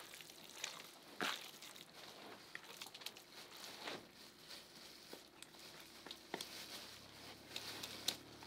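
Faint, scattered clicks, light knocks and rustles of small things being handled, with a sharper click about a second in and another near the end.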